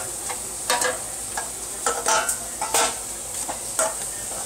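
Leaking water dripping onto a kitchen counter and stainless-steel sink, in short irregular ticks and plinks over a steady hiss. The water is coming through from the flat above.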